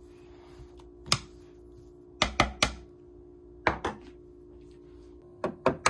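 Eggs being cracked against the rim of a bowl: a few sharp knocks in short groups of two or three, over a steady low hum.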